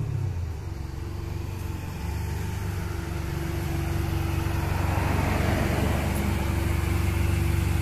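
Ferrari 550 Maranello's V12 running at low revs as the car rolls slowly past, a steady low note that grows gradually louder.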